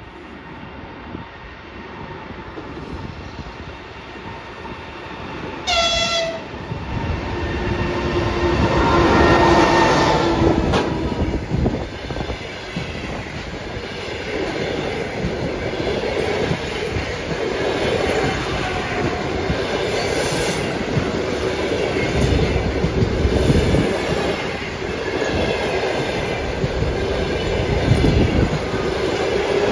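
ЭП20 (EP20) passenger electric locomotive approaching and sounding its horn, a short higher blast about six seconds in and then a longer, lower blast. Its train of passenger coaches then runs past at speed with a steady rumble and clatter of wheels on the rails.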